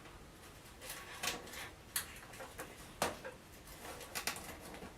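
Computer cables being handled and fastened inside a PC case during cable management: soft rustling of cables with a few short, sharp plastic clicks, the clearest about two and three seconds in.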